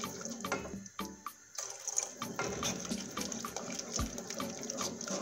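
Wooden spoon stirring a boiling sauce in a metal pot: wet sloshing and bubbling with many small scrapes and clicks of the spoon against the pot, as cornstarch slurry is stirred in.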